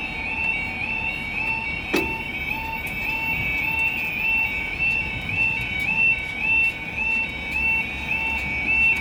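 Level crossing warning alarm, a brand-new E2S electronic sounder, pulsing a short rising tone about twice a second. A single sharp click is heard about two seconds in.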